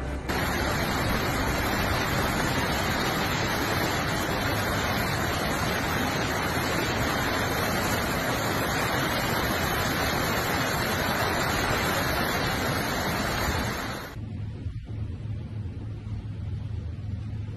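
Rushing floodwater pouring down a street: a loud, steady rush of water noise that cuts off about 14 seconds in, leaving a quieter low hum.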